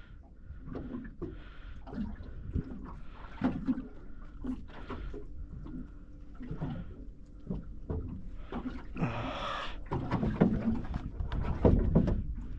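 Irregular knocks and thumps of handling on a small boat, with a brief hiss about nine seconds in.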